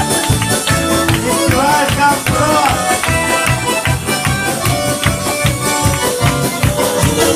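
Live band playing an upbeat dance tune in an instrumental stretch between sung lines, with a steady quick beat and people clapping along.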